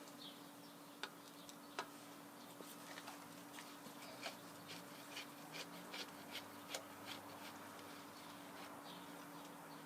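Faint, scattered light clicks and taps of metal parts and tools being handled as the old Rockford planer's cross-arm gearbox housing is worked loose, over a steady low hum.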